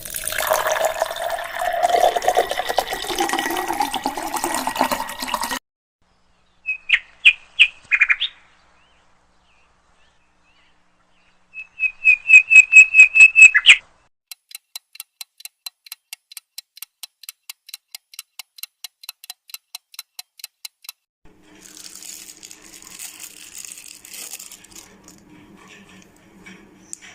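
A string of separate sound effects: a noisy burst with a falling whistle-like tone, then four short high chirps, a fast chirping trill, a steady ticking about three times a second, and a hiss with a low hum near the end.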